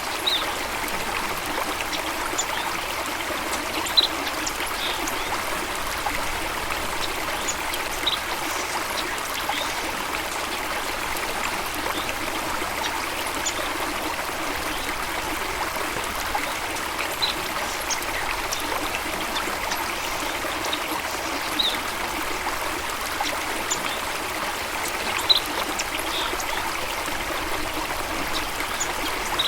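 Steady running water from a stream, with short high bird chirps scattered every few seconds.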